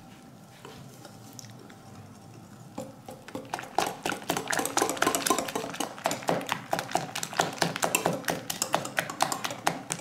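Wire hand whisk beating a runny cake batter in a glass bowl, its wires clicking quickly and unevenly against the glass. The whisking starts about three seconds in.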